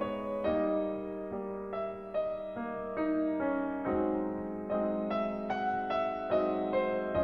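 Piano playing a gentle instrumental introduction, one note about every half second, over a steady held low tone.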